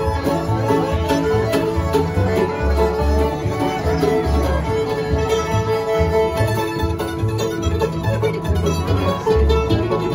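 Acoustic bluegrass band playing: banjo picking, fiddle, guitar and mandolin over plucked upright bass notes, continuous and full throughout.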